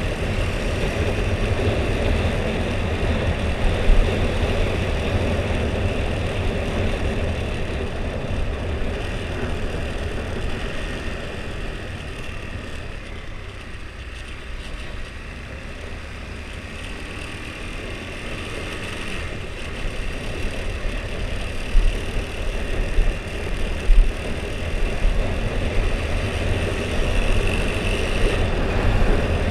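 Husqvarna Svartpilen 401's single-cylinder engine through its stock exhaust, running steadily under way with road and wind noise. The engine sound eases off for several seconds in the middle, then builds again, with a few brief thumps near the end.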